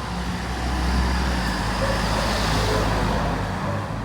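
A motor vehicle passing close by on the street: engine rumble and road noise swell about a second in, then fade toward the end.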